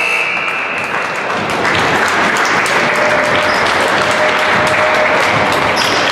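Gymnasium scoreboard buzzer sounding a steady tone that cuts off about a second in, marking the end of the game, followed by spectators applauding.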